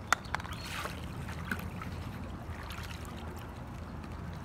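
Swimming-pool water sloshing and lapping as someone moves through it, with a few short sharp clicks early on and again about a second and a half in.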